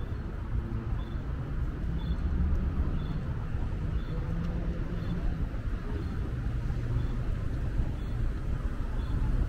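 City street traffic with a steady low rumble of passing vehicles. Faint short high beeps repeat about once a second over it.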